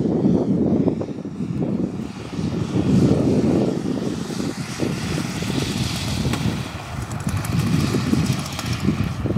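Moki 250 cc radial engine of a giant-scale RC Hellcat running in flight, driving a three-blade propeller. The sound swells and eases as the plane moves about the field.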